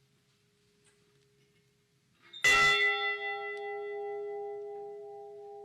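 A large bell struck once, about two and a half seconds in, then ringing on with a long, slowly fading hum: a single memorial toll. Before the strike only a faint ring lingers.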